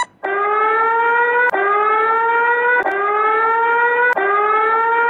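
Electronic alarm of a Chinese earthquake early-warning alert: a siren-like tone that rises in pitch over about a second and a quarter, then drops back and rises again, four times in a row.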